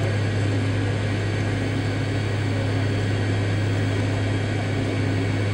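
Steady cabin drone of a taxiing MD-80 airliner, its rear-mounted Pratt & Whitney JT8D engines running at low taxi power, with a strong, even low hum.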